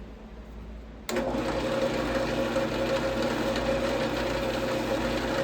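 Wood lathe switched on about a second in and running steadily with a hum, spinning the resin-and-wood bowl for its friction-polish finish.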